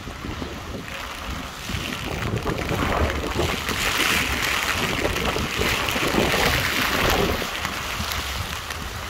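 Heavy rain falling steadily, with wind buffeting the microphone in a low rumble; the downpour grows louder about two seconds in.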